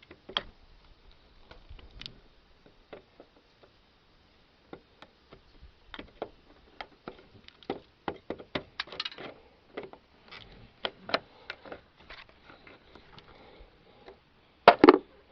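Metal hand tool tapping, knocking and scraping at a corroded negative battery-terminal clamp to work it loose from the post: irregular sharp clicks and knocks, with a louder double knock near the end.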